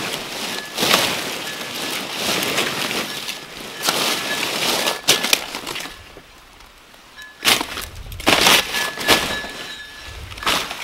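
A long knife chopping and cutting through banana plant stalks and leaves, with crunching and leaf rustling in repeated bursts and a short lull a little past the middle.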